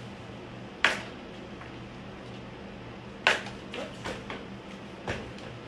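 A few sharp knocks and clicks: one about a second in, a quick run of several about halfway through, and one more near the end, over a steady low hum.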